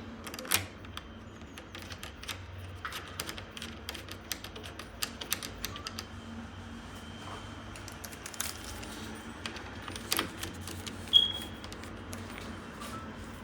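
Scattered clicks and small metallic taps of a screwdriver driving in the fixing screw of a newly fitted door lock, with one sharper click about eleven seconds in.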